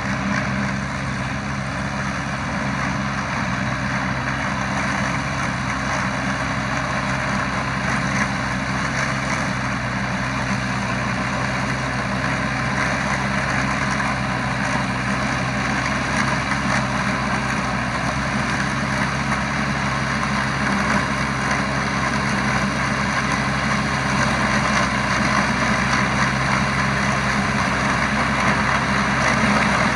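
Tractor's diesel engine running steadily under load as it pulls a tiller through a rice field, growing gradually louder toward the end.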